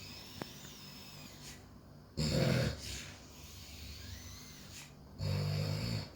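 A sleeper snoring: two loud snores about three seconds apart, each lasting under a second, with quiet breathing between them.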